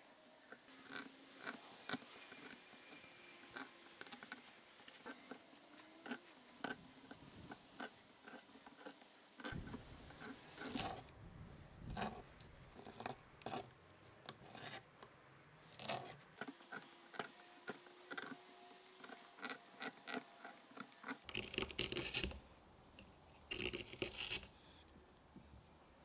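Hand carving gouge cutting a hollow into a small block of wood: a run of short, irregular scraping cuts, with a few longer rasping strokes near the end.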